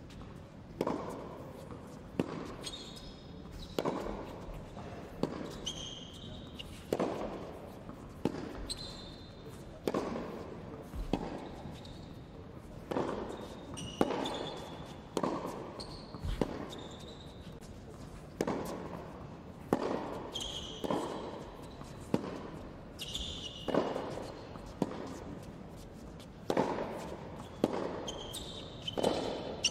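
Tennis ball hit back and forth in a practice rally: racket strikes and ball bounces about every second or so, each ringing on in a large indoor hall, with short high sneaker squeaks on the hard court between shots.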